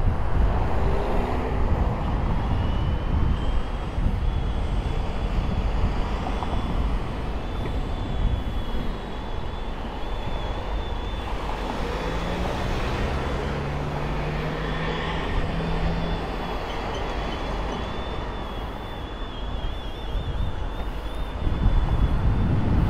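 Power soft top of a 2006 Audi S4 Cabriolet folding down, its motor giving a thin, steady high whine for about twenty seconds. Street traffic noise runs underneath.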